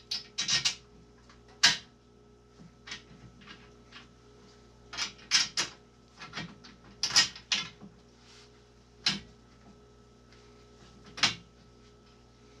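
Irregular clanks and clicks of a metal spray boom tube and its bracket being handled and fitted together. The sounds come in scattered clusters, with a few sharper knocks standing out.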